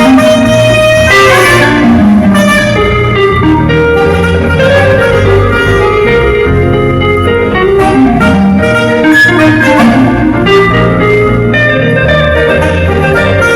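Saxophone playing a melody over a loud backing track with a steady bass line, during a sax sound check.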